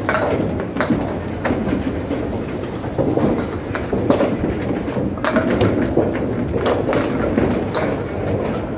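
Bowling alley: balls rolling down the wooden lanes in a continuous rumble, with pins crashing and clattering several times as balls strike them.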